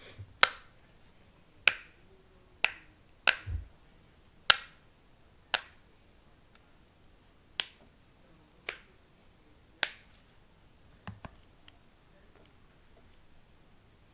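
A fidget toy being worked by hand for ASMR: about a dozen sharp pops or snaps, roughly one a second at an uneven pace, the last few weaker.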